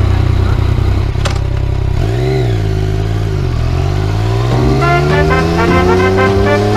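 Yamaha MT-09 Tracer's three-cylinder engine running under way, its pitch dipping and rising about two seconds in, then climbing steadily as the bike accelerates. Music comes in near the end.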